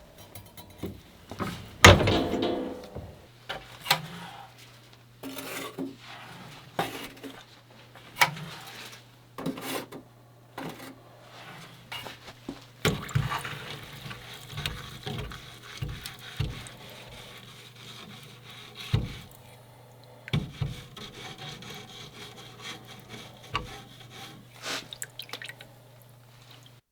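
Scattered knocks, taps and rubbing of objects being handled at a workbench, with a steady low hum that comes on about three seconds in.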